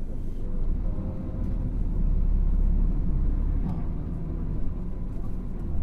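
Diesel engine and drivetrain of a Hino Blue Ribbon City (KL-HU2PMEK) city bus heard from inside while it drives, a steady low rumble. It grows louder about two seconds in and eases back a little before four seconds.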